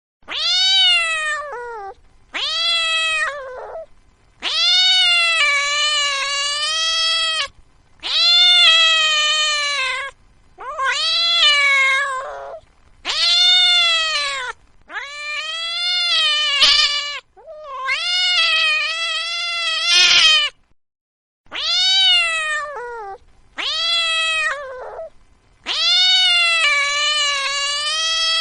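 Domestic cat meowing over and over: about eleven long meows, each rising then falling in pitch, some drawn out to two or three seconds, with short pauses between.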